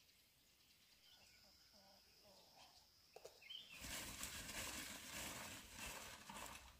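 Quiet rural outdoor ambience with a few faint bird-like chirps. About four seconds in, a rough rustling, scraping noise starts and lasts nearly three seconds.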